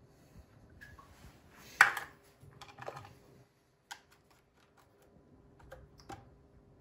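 Plastic shaker-cup parts knocking and clicking as the mesh mixing grid is fitted into the shaker: one sharp knock about two seconds in, then a scatter of lighter clicks.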